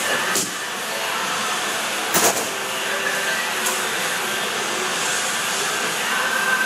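Steady machine noise, a hum and hiss without change. About two seconds in comes a sharp double knock, with fainter clicks before and after.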